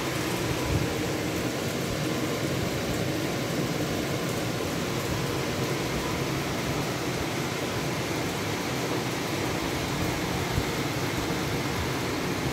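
Water pouring from the fill inlet into an ebb-and-flow hydroponic flood tray: a steady rushing and splashing as the table floods.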